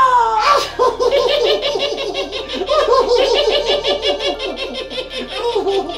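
A puppet character's high, voiced laughter: a long run of quick, repeated "ha-ha" syllables, after a falling note at the start.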